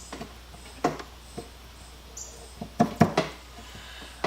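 A handful of light clicks and knocks from handling an old wooden carpenter's tool box at its built-in lock. One comes about a second in and a quick cluster follows near three seconds.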